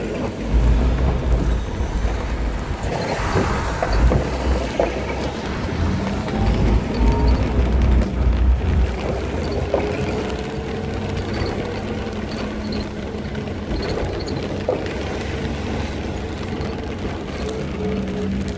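Storm wind buffeting the microphone: a heavy low rumble that gusts hardest in the first half and then eases, with faint drawn-out tones underneath.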